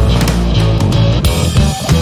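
Background rock music with electric guitar and bass over a steady beat.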